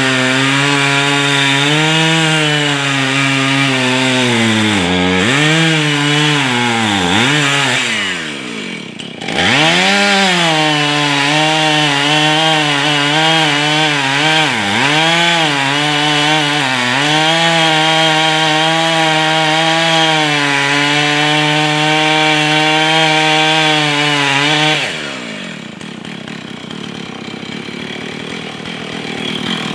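Husqvarna 445 two-stroke chainsaw, freshly fitted with a new bar, running at full throttle through cuts, its pitch sagging several times under load. It drops off about eight seconds in, revs back up, and falls away to a quieter run near the end.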